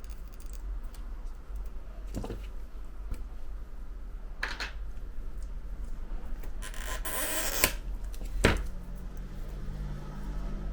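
Small tools and phone parts handled on a workbench: a few light clicks and taps, with a longer scraping sound about seven seconds in and a sharper click just after, over a steady low electrical hum.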